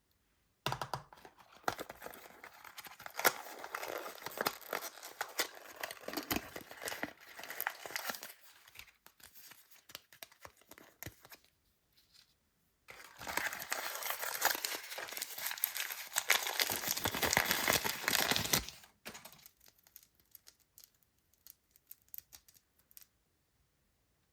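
Toy packaging being crinkled and torn open by hand: dense crackling in two long spells, the second louder, with scattered crackles in between and after.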